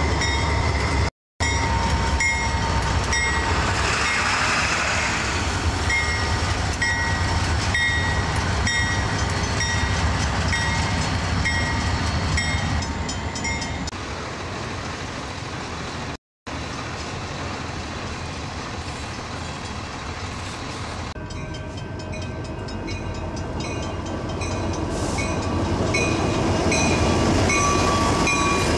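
Diesel-hauled freight train passing close by: a steady heavy rumble of locomotives and rolling freight cars, with short high-pitched squeals from the wheels recurring over and over. The sound is broken by two brief gaps.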